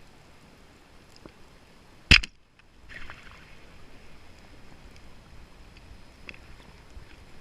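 A single loud, sharp bang about two seconds in, most likely a speargun firing underwater, over a steady underwater hiss with a few faint clicks.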